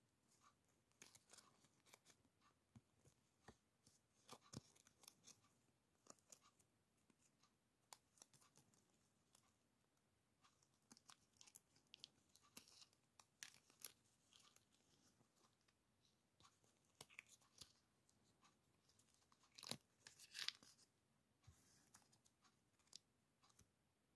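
A handful of small die-cut butterfly stickers rustling and crinkling as fingers sort and flip through them, in a quiet run of short irregular crackles with a louder burst of crinkling about twenty seconds in.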